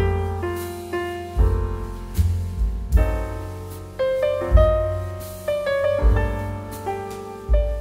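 Background piano music: chords and a melody with a steady bass note struck roughly every beat, each note ringing and fading.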